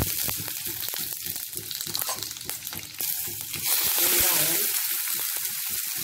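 Mustard seeds, urad dal and chillies sizzling in hot oil in a stainless steel frying pan, with scattered sharp pops from the seeds. A few seconds in, sliced onions drop into the oil and the sizzle grows louder.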